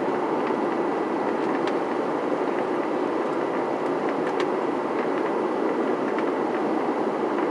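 Steady airliner cabin noise in flight: jet engines and rushing air heard from inside the cabin, with a few faint clicks.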